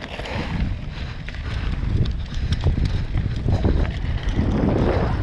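Wind buffeting the action-camera microphone during a downhill mountain-bike run, with a steady low rumble of tyres over rough ground and scattered clicks and rattles from the bike.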